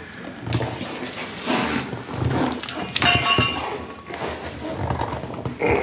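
Hoosier racing tire being worked by hand on an aluminium wheel: rubber rubbing and knocking against the rim, with a brief squeak about three seconds in.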